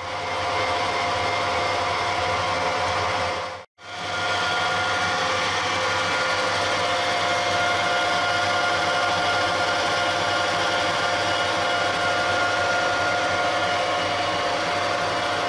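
Harrison 140 lathe running at steady speed, a constant machine hum with a steady whine. The sound drops out sharply for a moment about four seconds in, then carries on unchanged.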